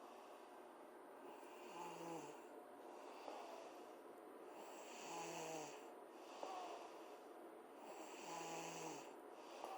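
A sleeping girl snoring: three low, breathy snores about three seconds apart, each a short rumbling tone with a hiss of breath over it.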